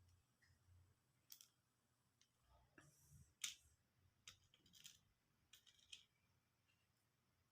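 Near silence broken by faint, scattered small clicks and taps, about eight over several seconds, one a little louder midway: small spare parts being picked through and handled while searching for a compatible replacement phone charging port.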